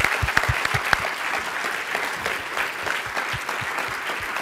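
Audience applauding, many hands clapping together, slightly louder at the start.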